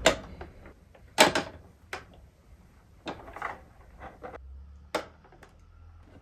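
Hard plastic knocks and clacks, about six at irregular intervals, as an air purifier is shifted and rocked on add-on casters over a wooden floor; the casters don't work on its base.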